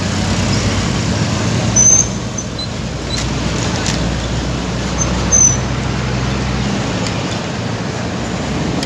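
Road traffic noise from motorcycles and other vehicles running close by, a steady engine hum over tyre noise. Two brief louder moments with a short high squeak come about two and five seconds in.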